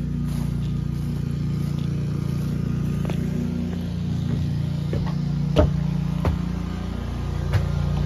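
Footsteps crossing grass and then climbing wooden steps, with a few sharp thumps on the boards in the second half, over a steady low machine hum.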